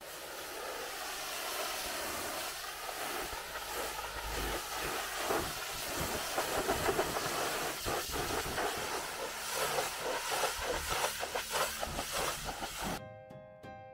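A pressure washer's high-pressure water jet spraying against a car's bodywork: a steady hiss with patchy spattering. Music with clear plucked or piano-like notes comes in about a second before the end.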